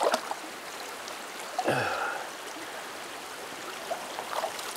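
Shallow river current flowing steadily around a wading angler's legs. About two seconds in, a person makes a short vocal sound that falls in pitch.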